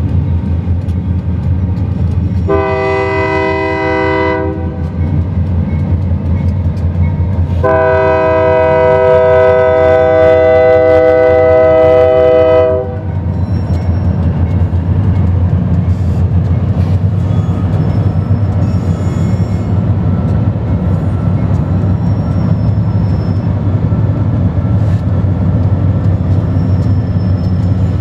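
Union Pacific diesel locomotives at the head of a freight train passing with a steady low engine rumble, sounding the air horn twice: a short blast about two and a half seconds in and a long, louder blast of about five seconds starting near eight seconds. The freight cars then roll past.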